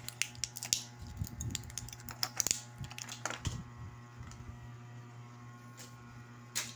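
Quick light clicks and taps of small hard objects being handled, dense for the first three seconds or so and then only an odd click, over a steady low hum.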